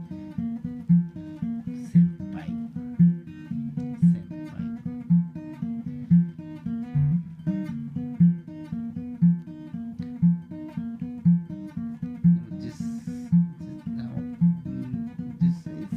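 Acoustic guitar playing an instrumental piece: a low bass note sounds about once a second under a picked melody of higher notes.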